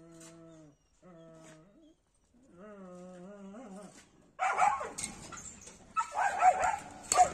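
Several dogs break into loud, excited barking and yipping about four seconds in, the barks overlapping. Before that there is only a low humming in short, level held notes.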